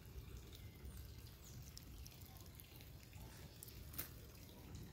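Near silence: a faint low rumble, with a few small clicks and one sharper click about four seconds in.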